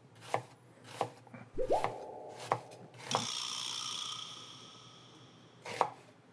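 A chef's knife slicing an onion on a cutting board: about six crisp strokes at an uneven pace, most in the first three seconds, with one more near the end. About a second and a half in, a short rising tone holds until about three seconds in. Then a high ringing tone fades out over the next few seconds.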